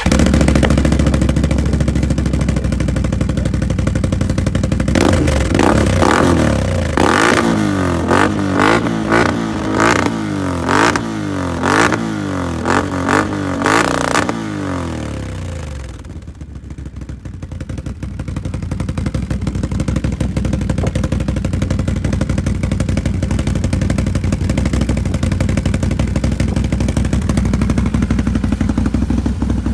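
Can-Am Outlander XMR 1000 ATV's V-twin engine running through a Yoshimura aftermarket muffler: steady idle, then a series of quick throttle blips through the middle, each rev rising and falling, before it drops back to a steady idle.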